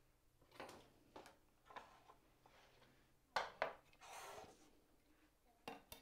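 Faint knocks and clicks of small wooden pieces and a steel rule being picked up and set down on a workbench top, with a brief scraping slide about four seconds in.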